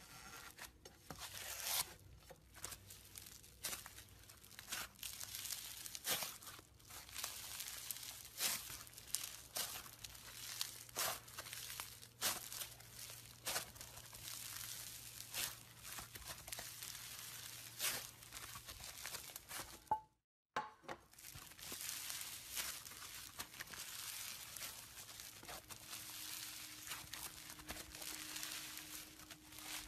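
Foam-bead slime (floam) being squeezed, kneaded and pulled apart by hand, crackling with many small pops and tearing sounds. A brief gap of silence comes about twenty seconds in, then the crunching goes on more evenly.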